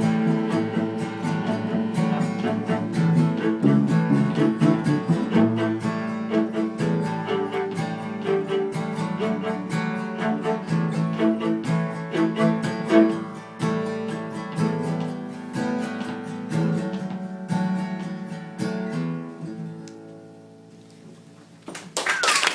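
Acoustic guitar finger-picking an instrumental outro, the plucked notes thinning out and fading near the end. A short burst of noise starts just before it stops.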